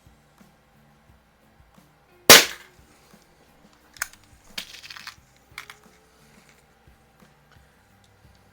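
A single sharp crack from a CO2 pellet target pistol firing, with a short ring after it, followed a couple of seconds later by a few fainter clicks and a brief rattle.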